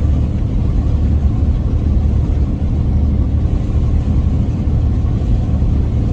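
A steady, loud low rumble with no distinct events.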